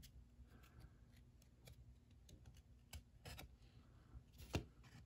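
Near silence with faint scattered clicks and light rustling of trading cards being handled, and one sharper tap near the end.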